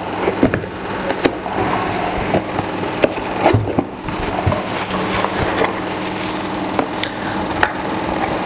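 Cardboard box flaps being opened and plastic bubble-wrap packaging rustling and crackling as it is handled and pulled out, with many sharp clicks.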